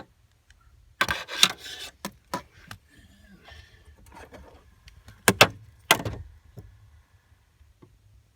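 Clicks, rattles and sharp knocks of hard plastic parts being handled and pushed into place while a replacement HVAC blend door is fitted. There is a burst of rattling about a second in and a few sharp knocks around five and six seconds in.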